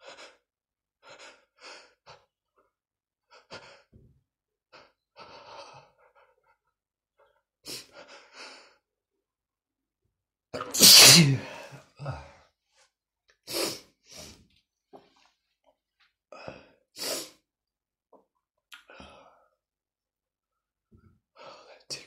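A man's tickle-induced sneezing: short catching breaths and gasps, one loud sneeze about eleven seconds in, then two more sharp, quieter bursts.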